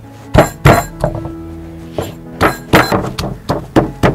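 Pestle pounding chili and garlic in a stone mortar: dull thunks with a slight clink, two heavy strikes about half a second in, then a steady run of about three strikes a second from about halfway, over background music.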